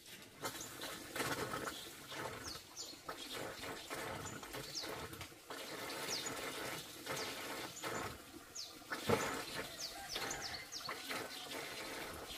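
Short, high, falling bird chirps repeat over a busy run of knocks and clicks, with one sharper knock about nine seconds in.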